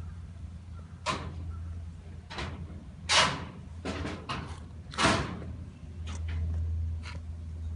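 A series of short, sharp knocks and bangs, about eight in all, the loudest about three and five seconds in, over a steady low hum.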